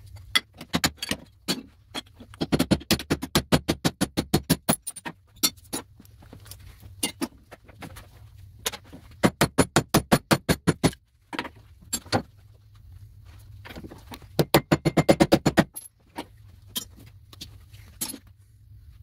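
Hammer blows smashing small cast-aluminum motor housings apart at a vise, sped up with the time-lapse: four runs of rapid, sharp metallic strikes at about seven a second, with a few single knocks between them.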